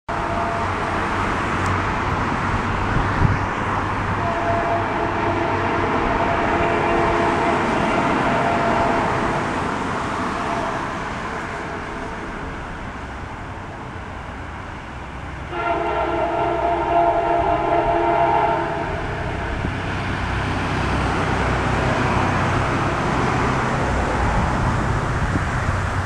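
Distant Via Rail train horn sounding two long blasts, each a chord of several tones. The first lasts about six seconds and fades out; the second starts abruptly about halfway through, is louder, and lasts about three seconds.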